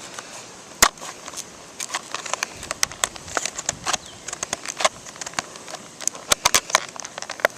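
Plastic packaging of a box of trading cards crinkling and crackling as it is handled and opened, in many irregular sharp crackles, the loudest about a second in.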